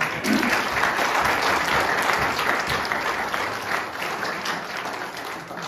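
Congregation applauding, loud at first and fading toward the end.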